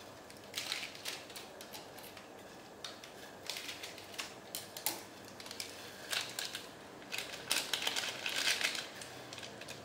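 Plastic noodle seasoning sachets crinkling and rustling in irregular bursts as they are torn open and squeezed out, with short crackly clicks.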